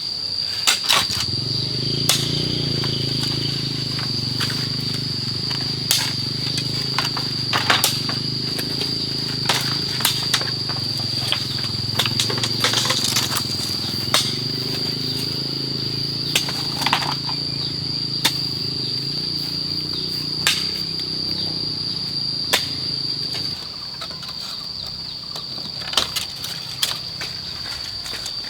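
Irregular knocks and cracks of wood and bamboo, typical of wall panels being pried apart and dropped, over a steady high drone of cicadas or crickets. A low hum runs underneath and stops about four-fifths of the way through.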